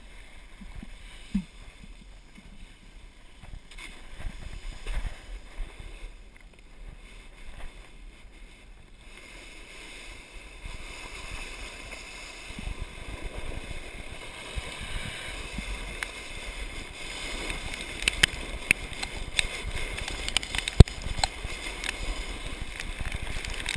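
Wind on an action-camera microphone with crunching of loose volcanic gravel under a wooden sandboard. It is fairly quiet with scattered clicks at first, then from about halfway a rough scraping rumble builds, with sharp crackles near the end, as the board starts sliding over the scree.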